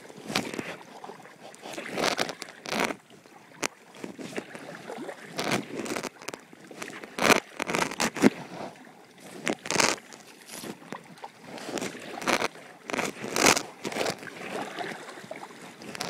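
Kayak paddle dipping and splashing in irregular strokes, with water sloshing against the hull between them.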